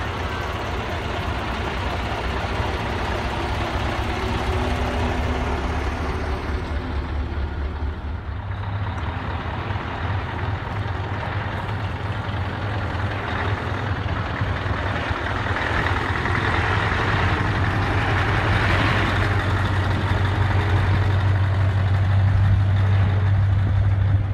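Scania V8 tractor units driving slowly past at close range: first the red Scania 141's V8, then the green Scania 143M 450's 14-litre V8 pulling up and past. There is a low, steady engine drone that grows louder toward the end as the 143 goes by.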